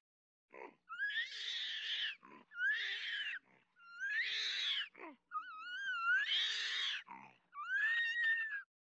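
An animal calling: five harsh, rising screams of about a second each, with short breaths between them.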